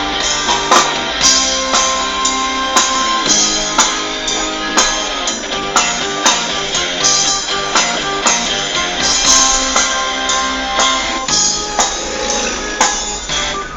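Rock music playing: guitar over a drum kit keeping a steady beat.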